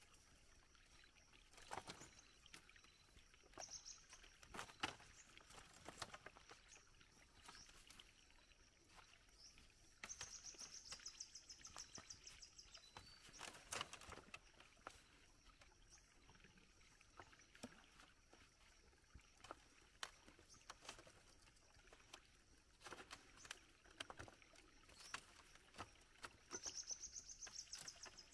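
Faint, scattered knocks and clatters of split bamboo slats and poles being handled and laid across a bamboo frame. A high, pulsed buzz sounds for a couple of seconds about ten seconds in and again near the end.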